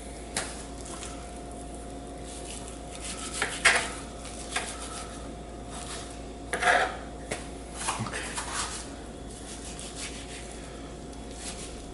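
Knife scraping and clicking against a cutting board while fat and gristle are trimmed off a raw beef brisket, a few scattered strokes over a steady faint hum.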